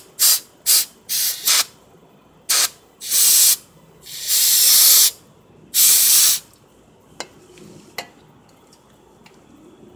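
Aerosol brake parts cleaner spraying with a hiss, used to clean oil off the crankshaft position sensor's plug. It goes in a run of short squirts, then three longer blasts. Two light clicks follow near the end.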